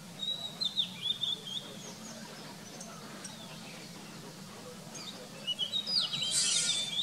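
Oriental magpie-robin singing: a phrase of clear, high whistled notes at the start, a quieter pause, and a second phrase near the end that includes a brief harsh, scratchy note.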